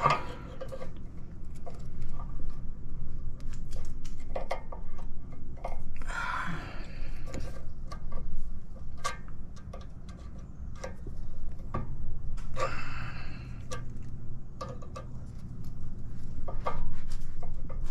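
Small irregular metal clicks and scrapes of pliers gripping and working a bent steel cotter pin out of a castle nut on the front suspension. Two longer rushing noises come in about six and thirteen seconds in.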